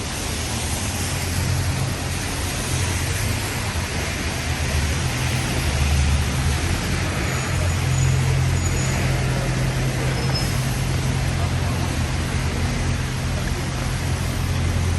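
Road traffic on a wet city street: a vehicle engine running close by with a steady low rumble, over a constant hiss.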